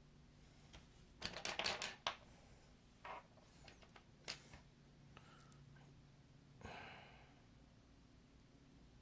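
Faint clicks, taps and scrapes of small tools and iPhone parts being handled during reassembly: a quick run of clicks about a second in, then a few single taps.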